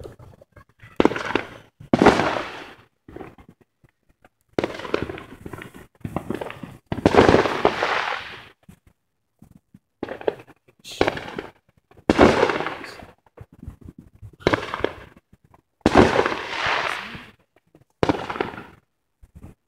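Fireworks going off: a dozen or so sudden bangs at uneven intervals, each trailing off over about a second.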